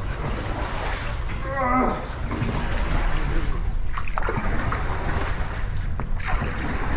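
Dragon boat paddles splashing and churning through the water, with a brief shout about a second and a half in.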